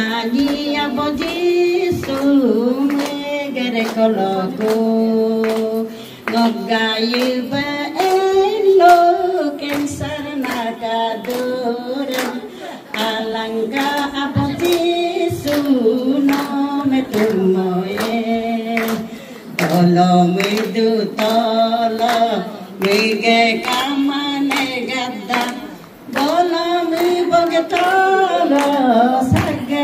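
A Christian gospel song sung by a single voice without instruments, in a local language, with hand-clapping keeping a steady beat.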